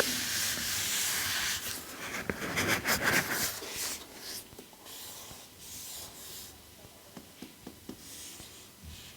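Packaging being handled and opened: a steady rubbing hiss for the first couple of seconds, then louder rustling and scraping with sharp clicks from about two to four seconds in, then quieter scattered taps and rubs.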